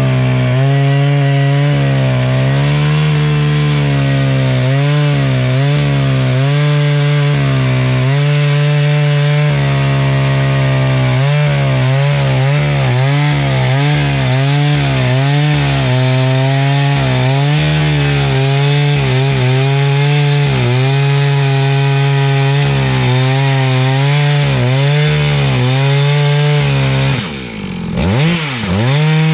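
Echo CS-590 Timberwolf chainsaw with a ripping chain running at high revs while cutting lengthwise through cedar, the engine note wavering as the chain bites into the wood. Near the end the revs drop briefly, then climb back up.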